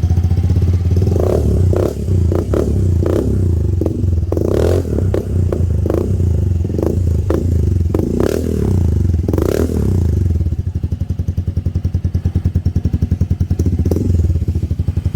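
Motorcycle engine running through a TRC power pipe aftermarket exhaust with the removable silencer taken out. It takes repeated quick throttle blips over the first ten seconds or so, then settles into a steady idle.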